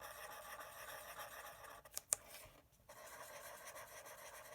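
Black felt-tip marker drawing the eyes on paper, heard faintly in two stretches, with a short pause and a couple of sharp clicks about two seconds in.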